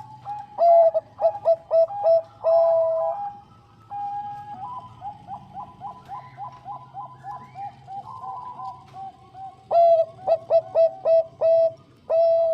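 Zebra dove (Thai-bred perkutut bangkok) cooing: rapid series of short, staccato coos. The song is loud about a second in and again near the end, with a softer, quicker run of coos between.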